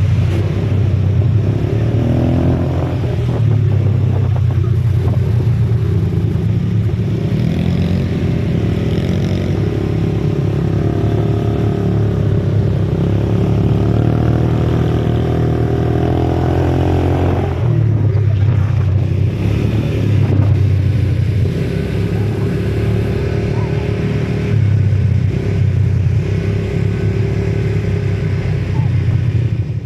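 ATV (quad bike) engine running while riding, its pitch rising and falling with the throttle.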